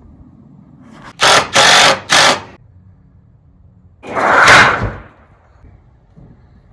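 Tar paper being handled and ripped: three quick loud tearing rips about a second in, then one longer rip about four seconds in.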